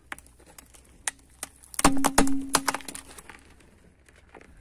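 Car tyre crushing a plastic tub of Smarties: a few scattered clicks and crunches, then a quick run of loud sharp cracks about two seconds in as the plastic container and the candy shells break.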